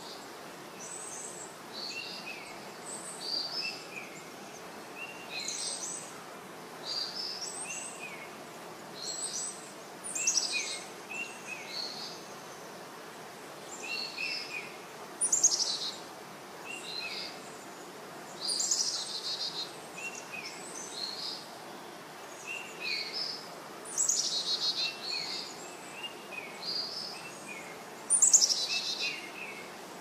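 Birds chirping: short high calls in small groups about every second, with a few louder falling calls, the loudest about halfway and near the end, over steady low background noise.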